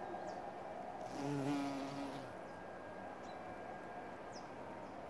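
A bumblebee buzzing in flight for about a second, a steady low-pitched hum starting about a second in, then fading.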